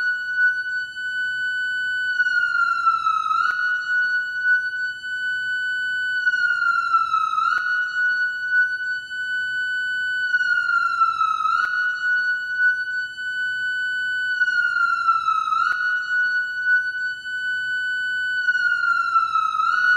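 Japanese police motorcycle (shiro-bai) electronic siren wailing in a slow repeating cycle about every four seconds: a quick jump up in pitch, a held high note, then a slow slide back down, with a faint click as each cycle restarts.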